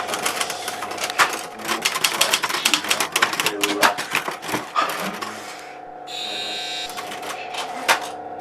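Rapid typewriter keystrokes in a dense, fast run over a steady hum; the typing breaks off for about a second and a half past the middle, then starts again.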